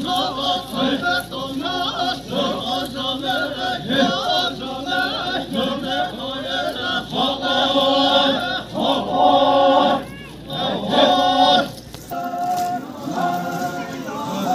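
Chakhesang Naga dancers' group chant: many voices singing a traditional folk song together in short repeated phrases.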